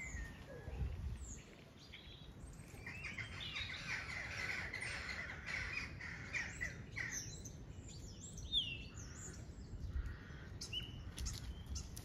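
Songbirds singing: a long warbling song through the middle, then scattered chirps and short falling whistles. Wind rumbles on the microphone for about the first second and a half.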